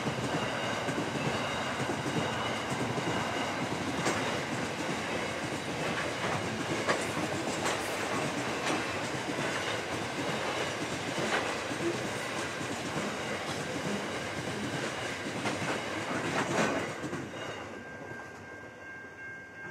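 Grain hopper wagons of a freight train rolling past: a steady rumble of steel wheels on rail with sharp clacks every second or two, fading away near the end as the last wagon passes.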